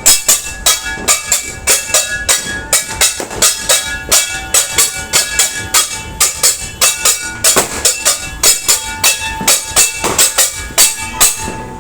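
Metal being banged in a steady, fast beat, about three strikes a second, each strike clanging and ringing: New Year's noise-making.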